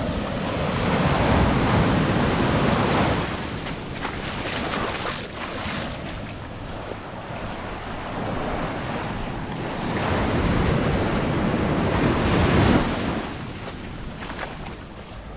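Small ocean waves washing up and breaking on a sandy beach, each surge swelling and then falling back as the water runs up the sand. One surge comes in the first few seconds and a louder one about three-quarters of the way through. Wind rumbles on the microphone throughout.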